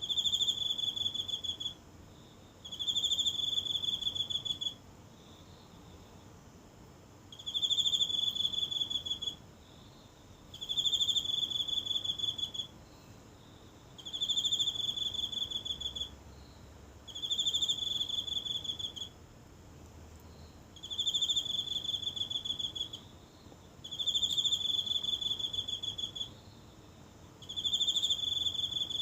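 A single insect singing: a high, finely pulsed trill about two seconds long, repeated nine times with pauses of one to two and a half seconds between.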